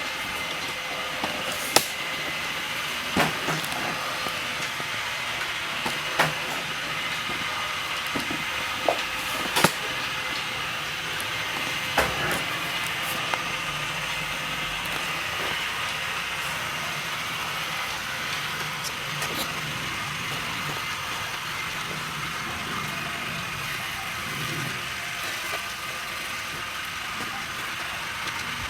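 Ainol A-S11 robot vacuum's fan and motors running steadily at reduced mop-mode suction, a steady whir with several steady tones in it. A few sharp knocks and clicks stand out in the first half.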